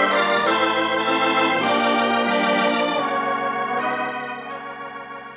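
Organ music bridge between scenes: a few sustained chords that change several times and then fade away over the last couple of seconds.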